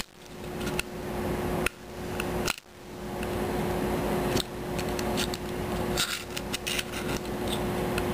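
A small metal tool clicking and scraping against the magazine catch in the frame of a KSC Glock 18C airsoft pistol. Scattered light clicks, more frequent in the second half, over a steady hum.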